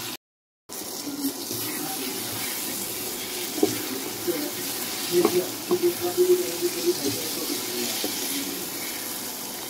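Paneer cubes and masala sizzling steadily in a kadhai, with a few light knocks of a wooden spatula. A short moment of silence comes just after the start.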